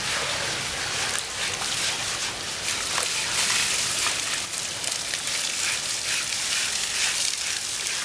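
Water from a garden hose spraying and splashing on a lying elephant's wet hide, a steady hiss with scattered splashes, while it is scrubbed down.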